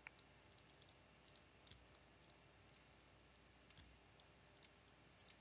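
Near silence broken by faint, scattered clicks and taps of a stylus on a tablet screen as words are handwritten.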